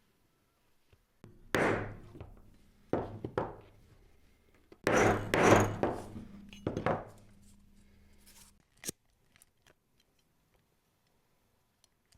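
A mallet striking a strap end punch through leather strap: about seven heavy knocks in small bunches, each fading with a short ring, then a few faint clicks near the end.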